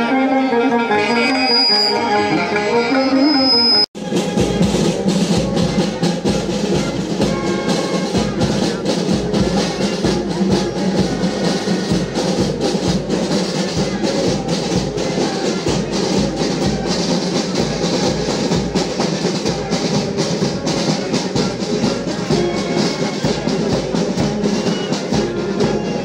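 A sitar plays Indian melody over tabla for about four seconds; then the sound cuts abruptly to a marching band, with brass over side drums and bass drum beating a steady march.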